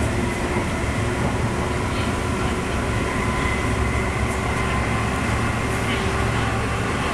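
Steady rumble of a moving electric commuter train, heard from inside the carriage, with a faint steady whine above it.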